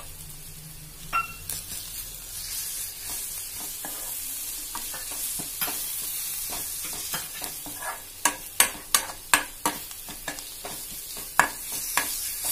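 Chopped onions, curry leaves and ginger-garlic paste sizzling in hot oil in a metal pan while a steel spoon stirs and scrapes through them, clinking against the pan. The clinks come quicker and louder about eight seconds in.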